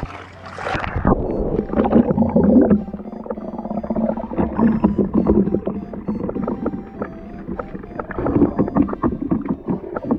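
Sea water heard through a submerged action camera: the open-air hiss drops away about a second in as the camera goes under, leaving muffled sloshing and bubbling with frequent knocks.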